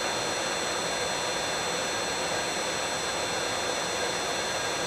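Allis-Chalmers 15 HP electric motor running steadily on a variable-frequency drive: an even running noise with several steady high-pitched whining tones over it. It sounds pretty healthy with its windings freshly dried out.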